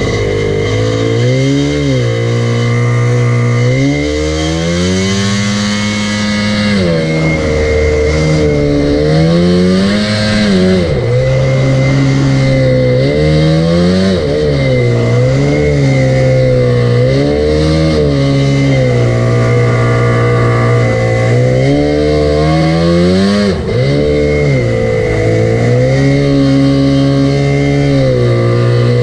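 Jet ski engine idling and being revved up and back down again and again, a rise and fall in pitch every few seconds, with a steady high whine running under it.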